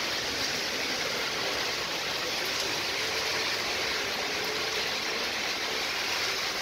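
Heavy rain pouring down in a steady hiss, mixed with car tyres swishing through water on the wet road.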